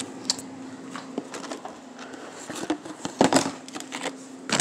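Scattered light clicks and knocks of food containers and grocery items being handled while stocking a refrigerator, with a small cluster of knocks near the end, over a steady faint hum.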